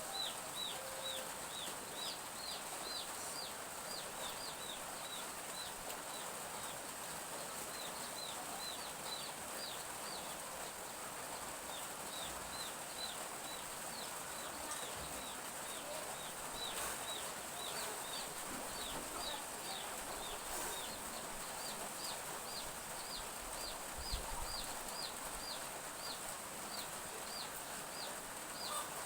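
Domestic chicks peeping continuously, a long run of short, high, quickly falling peeps, over the soft even hiss of light drizzle.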